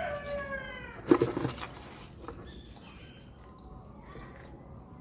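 The end of an animal's call: a drawn-out pitched note that falls in pitch and stops just after the start. About a second in comes a single sharp, hollow knock as plastic plant pots are handled.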